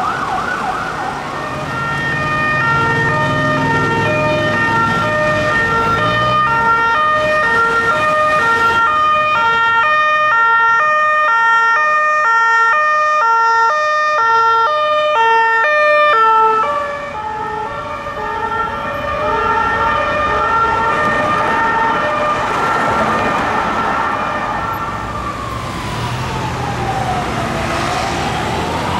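Emergency vehicle sirens in succession. It opens with a fast warbling yelp. Next comes an ambulance's two-tone siren alternating high and low notes about once a second, which cuts off about sixteen seconds in. Another two-tone siren follows, then a slow wail that falls and rises again near the end.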